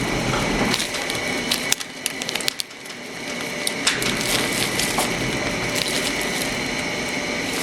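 Plastic blind-bag packaging crinkling and rustling with scattered small clicks as a toy figure and its wrapping are handled.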